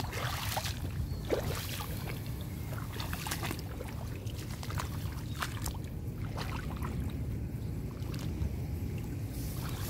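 Bare feet wading through shallow floodwater and wet grass: irregular splashes and swishes of stems, over a steady low rumble.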